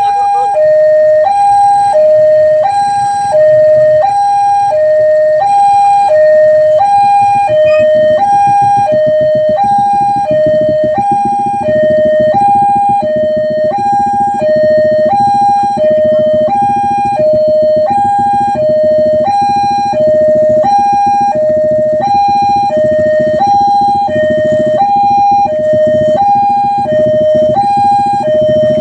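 Railway level-crossing warning siren sounding continuously, an electronic two-tone alarm that switches between a higher and a lower note about every two-thirds of a second. A low rumble joins underneath from about eight seconds in.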